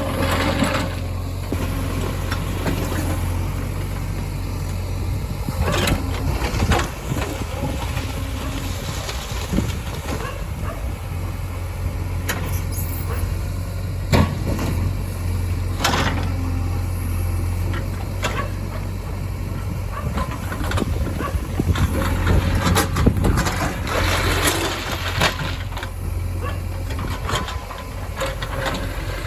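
Diesel engines of a backhoe loader and tractors running steadily, with sharp knocks and clatters now and then as stone is handled.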